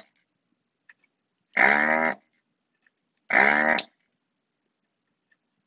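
Hakko FR-301 desoldering gun's vacuum pump buzzing in short bursts of about half a second as the trigger is pressed to suck molten solder from circuit-board joints: the tail of one burst at the start, then two more about a second and a half and three seconds in.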